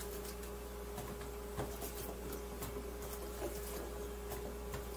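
Faint, scattered clicks and taps of chopped onion pieces being picked out of a bowl by hand and dropped into a container of vegetables, over a steady electrical hum.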